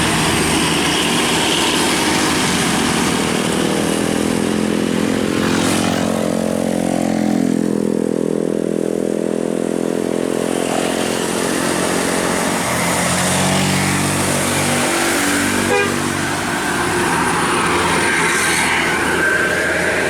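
Roadside traffic passing, with a heavy vehicle's engine running loud and steady from about six seconds in, then fading after about fourteen seconds.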